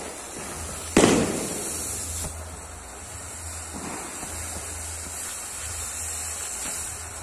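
Ground fountain firework (anar) hissing steadily as it sprays sparks. A single loud bang about a second in, and a smaller pop about a second after it.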